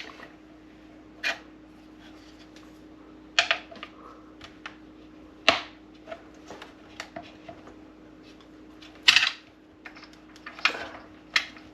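Small tools and screws clicking and clinking against the coffee maker's housing during disassembly: about six separate sharp knocks, spread out, the loudest about nine seconds in. A faint steady hum runs underneath.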